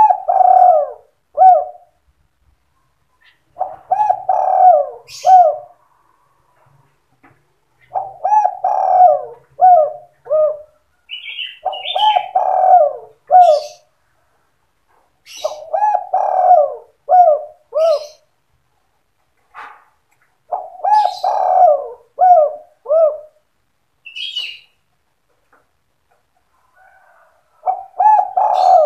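Spotted dove (tekukur) cooing its 'sandung kuk 2' song: phrases of several low coos, each about two seconds long, repeated roughly every four seconds. Short higher chirps come in between a few of the phrases.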